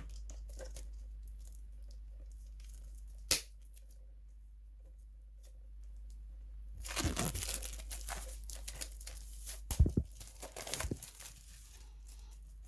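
Plastic shrink-wrap being torn and peeled off a Blu-ray steelbook case, crinkling and tearing. A sharp click comes about three seconds in, and the busiest crinkling fills the second half.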